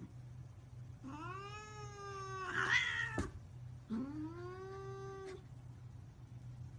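Domestic cat giving two long, drawn-out meows, the first about two seconds long and the second a little shorter, each sliding up at the start and then holding its pitch. A faint low hum runs underneath.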